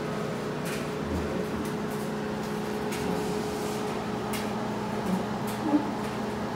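Panasonic HomeChef 4-in-1 multi-oven running on convection bake: a steady fan hum with a constant low tone. A few faint clicks and one short knock sound over it, about a second before the end.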